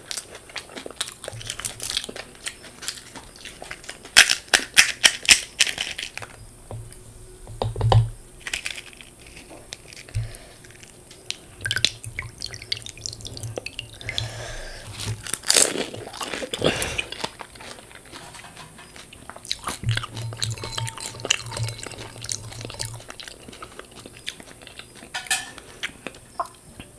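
Close-up crunching and chewing of crisp fuchka (pani puri) shells, a run of sharp crackles with a dense cluster a few seconds in.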